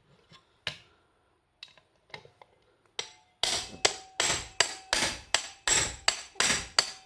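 Hammer striking a manual impact screwdriver seated on a pin of a washing machine spin-dryer motor's housing, driving the pin out. A few light taps come first; then, from about three and a half seconds in, a fast steady run of sharp metallic blows, two to three a second.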